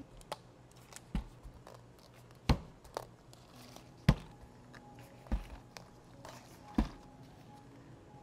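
Domed plastic drink cups being handled and set down on a countertop as cardboard sleeves are slipped onto them: about five sharp knocks, the loudest about two and a half and four seconds in, with soft paper rustling between them.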